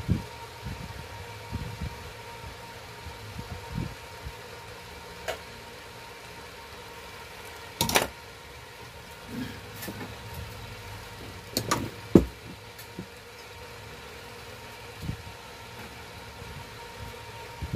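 Scattered clicks and knocks of hands, wire leads and a soldering iron working inside a stabilizer's sheet-metal casing, the two sharpest about eight and twelve seconds in, over a steady hum.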